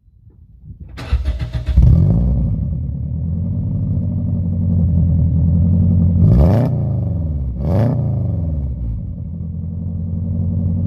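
Rebuilt Toyota Corolla engine cranking and catching about a second in, then running steadily, blipped twice with quick revs that rise and fall back to idle.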